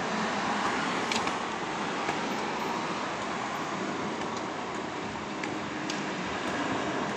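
Airbus A320 jet engines, heard as a steady rushing roar without any clear whine.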